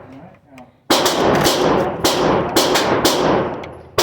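A quick string of 9mm pistol shots, about four in two seconds, starting about a second in. Each shot has a sharp crack and a long echoing tail.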